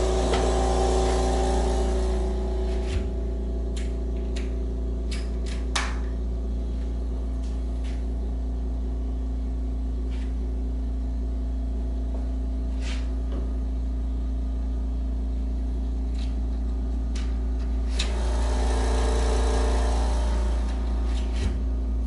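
California Air Tools 5510SE quiet air compressor running with a steady hum inside a sound-insulating plywood box. It is louder while the box stands open, drops to a muffled hum once the box is closed about 2 seconds in, and swells again for a couple of seconds near the end. A few sharp clicks come through early on the muffled stretch.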